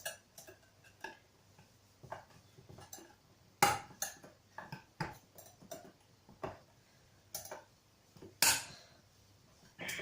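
A spoon clinking and knocking against a bowl in irregular taps, two of them louder, while melting chocolate is stirred.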